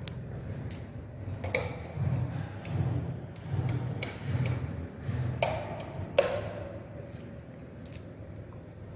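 Footsteps at a walking pace on a hard tiled floor, with several sharp clicks and knocks among them.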